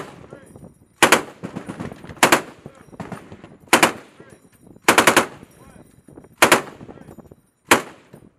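Deck-mounted machine gun firing six short bursts of a few rounds each, spaced a second or so apart, each with a reverberating tail.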